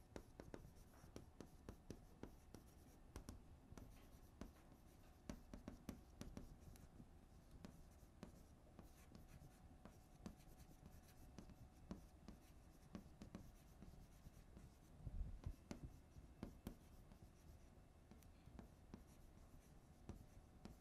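Faint chalk writing on a blackboard: a scatter of short taps and scrapes as numbers are chalked on, with a soft low thump about fifteen seconds in.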